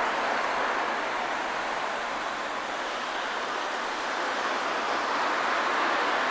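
Steady road traffic noise: tyres and engines of vehicles passing on a town street, easing a little midway and swelling again near the end.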